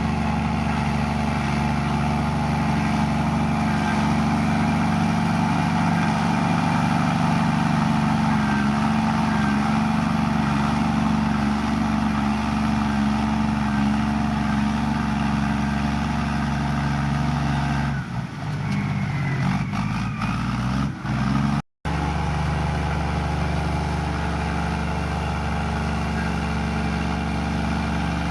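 Komatsu bulldozer's diesel engine running steadily under load. About eighteen seconds in its note wavers and shifts, and a few seconds later the sound drops out for an instant before the steady engine sound returns.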